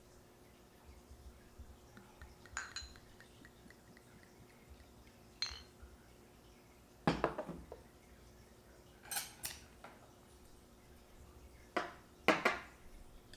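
Scattered light clinks and knocks of small hard objects being handled, about seven in all, a couple with a short ringing tone.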